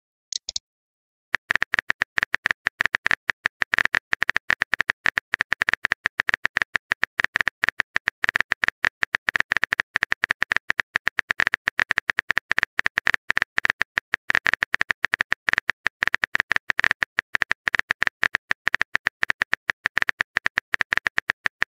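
Keyboard-typing sound effect of a texting app: a rapid, even run of identical short clicks, one per typed letter, starting about a second in. A brief high blip comes just before it.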